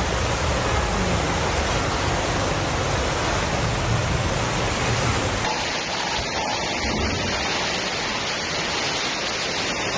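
Dense, steady rushing noise of a torrential storm: heavy rain and running floodwater. About five and a half seconds in the sound changes abruptly, losing much of its deep rumble.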